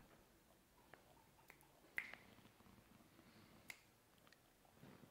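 Near silence: room tone with a few faint, sharp clicks, the loudest about two seconds in.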